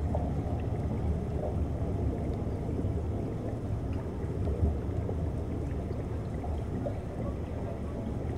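Underwater ambient sound from a submerged camera: a steady low rumble of moving water and surge, with a few faint scattered clicks.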